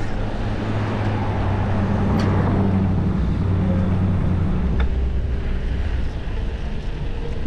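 Traffic noise heard from a moving e-bike: a motor vehicle's low engine hum drops in pitch about two-thirds of the way through, over a steady rush of road and wind noise.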